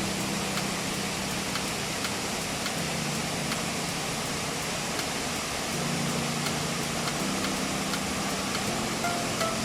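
Waterfall's rushing water, a loud steady hiss, with low held musical notes that shift pitch every few seconds underneath.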